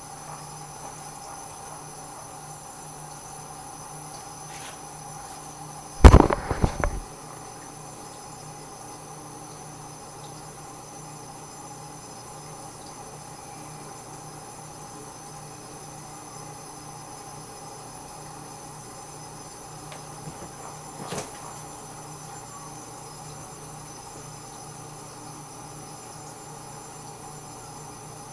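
A quick clatter of hard knocks about six seconds in, over a steady kitchen hum, with a lighter knock or two around twenty seconds in: cookware being handled during pan cooking.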